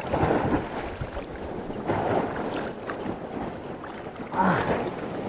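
Rough sea surf surging and washing around the shore, with wind buffeting the microphone; the wash swells up a few times.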